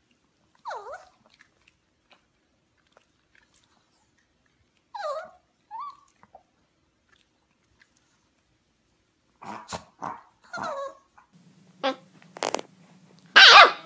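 Puppies yipping and barking: short high yelps that slide down in pitch about a second in and again around five to six seconds, then a run of small barks from about nine and a half seconds, the loudest near the end. A low steady hum sits under the last few seconds.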